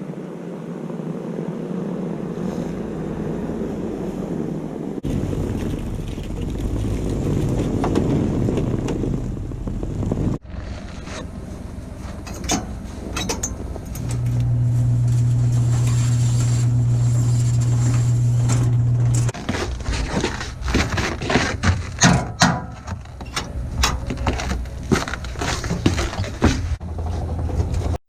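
A vehicle engine running through several cut-together stretches, one with a steady low hum. Near the end comes a run of sharp knocks and scrapes on frozen equipment.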